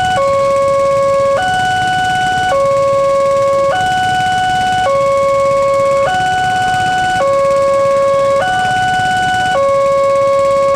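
Railway level-crossing alarm sounding its two-tone warning while the barrier is down for a passing train. It alternates steadily between a lower and a higher tone, each held a little over a second.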